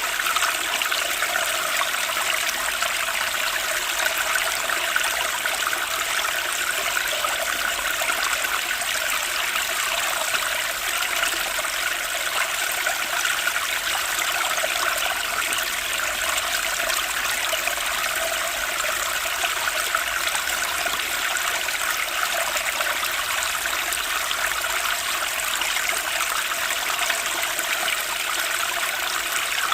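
Flowing water running steadily with an even, unchanging rush and trickle, like a small stream.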